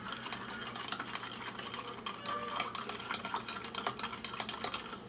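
Rapid, irregular clicking and clinking of a utensil beating a lemonade-and-milk mixture by hand in a container.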